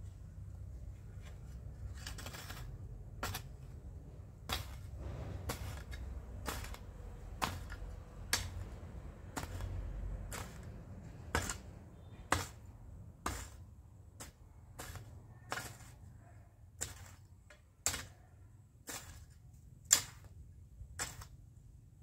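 A hand hoe's metal blade chopping into garden soil: a sharp strike about once a second, some twenty in a row.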